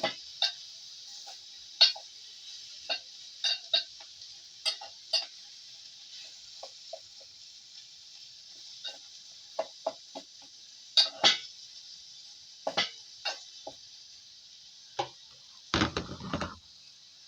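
Omena (small dried fish) frying in a pan with a steady sizzle, while a spoon stirs them, knocking and scraping against the pan at irregular intervals. A louder burst of clattering comes near the end.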